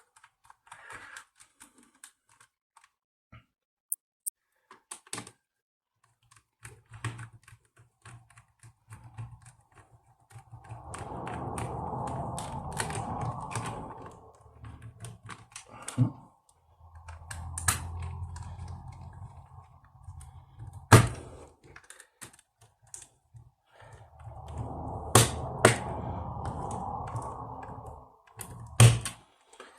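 Screws being tightened into a laptop's base: a small electric screwdriver runs in three stretches of a few seconds each with a steady hum, among light clicks and knocks of tools on the plastic case.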